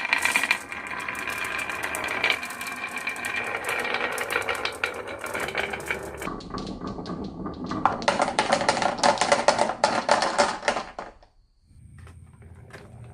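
Marbles clattering and rolling down a wooden marble run: a dense, rapid rattle of clicks that stops suddenly about eleven seconds in.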